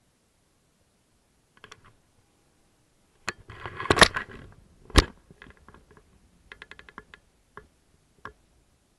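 Handling noise from fishing tackle and the boat close to the camera: a few clicks, then a cluster of knocks and rattles with two sharp thumps about a second apart, followed by a quick run of rapid ticks and scattered clicks.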